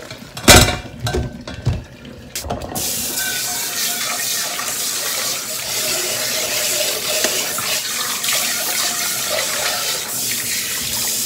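Several metal clanks of a stainless steel pot in a stainless steel sink over the first couple of seconds, the loudest about half a second in. Then a kitchen tap runs steadily into the pot as it is rinsed and scrubbed.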